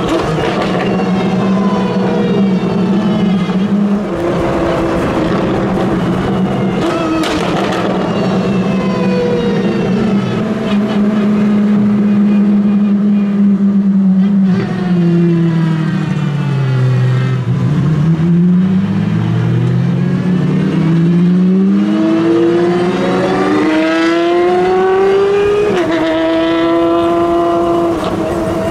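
Apollo Intensa Emozione's V12 engine running at steady revs, then dropping and climbing back about halfway through. Near the end it rises in steps as the car accelerates through the gears.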